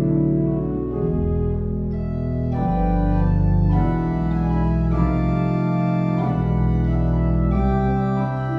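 Church organ playing a slow passage of sustained full chords over deep pedal bass notes, the chords changing about once a second.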